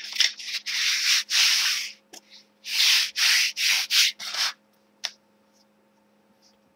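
Homemade sanding block wrapped in an abrasive sanding belt, rubbed by hand in rasping strokes: two longer strokes, then a quicker run of about five. A single short click follows near the end.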